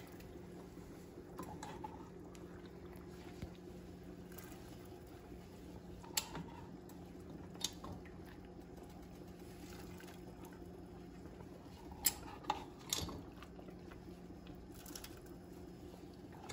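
Faint bubbling of a pot of lentil and quinoa soup simmering, over a steady low hum. A few sharp clinks of a spoon against the pot or bowl as cooked lentils are spooned in, most of them about two-thirds of the way through.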